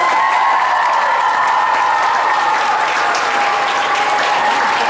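A large audience of schoolchildren applauding and cheering, a dense patter of many claps. One long high note is held over the clapping and slowly drops in pitch.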